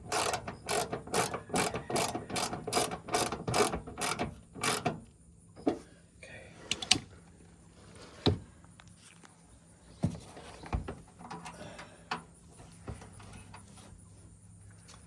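Hand ratchet clicking in quick, even back-strokes, about two to three a second, as it drives 7 mm fasteners. After about five seconds it stops, leaving a few scattered clicks and knocks.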